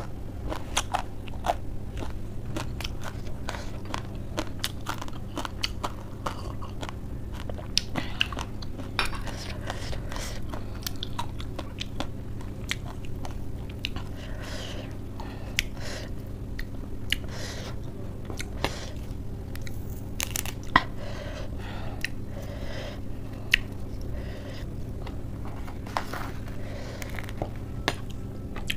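Close-miked chewing and crunching of a mouthful of spicy Wai Wai noodle mix and crisp lettuce, with many sharp crunches scattered throughout, over a steady low hum.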